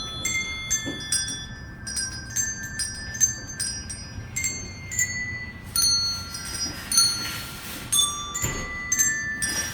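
A tune played on hand bells: single bells struck one after another at different pitches, each note ringing on and fading, about one or two notes a second.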